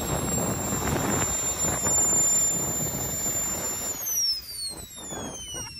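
Jet kart's small turbine engine running with a high whine over a loud roar. About four seconds in it shuts down: the roar drops away and the whine falls steadily in pitch as the turbine spools down.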